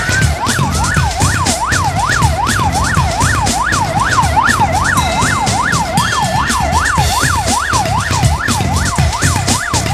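Police car siren in a fast yelp, its pitch sweeping up and down about two and a half times a second, over low, pulsing background music.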